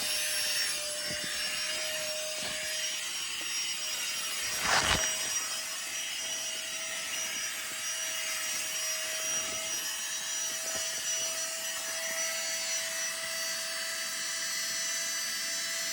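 Small electric air pump running steadily with a steady whir and a faint hum, inflating an air mattress. There is one short knock about five seconds in.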